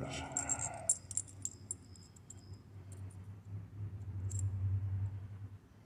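Small metal parts clicking and tinkling lightly as a tiny threaded lead screw is handled and fitted into a slotted metal block by hand, with one last click about four and a half seconds in. A low hum swells and fades between about three and five seconds in.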